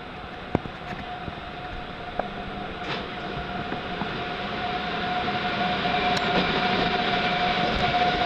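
Siemens EuroSprinter ES64U4 electric locomotive hauling a passenger train along a platform, growing steadily louder as it nears, with a steady high whine that strengthens as it comes. A couple of sharp clicks are heard in the first few seconds.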